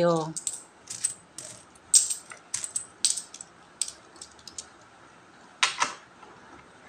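Metal peso coins clinking and clicking against each other as they are picked from a pile and stacked in the hand: irregular sharp clinks, with a louder clatter of several coins just before the end.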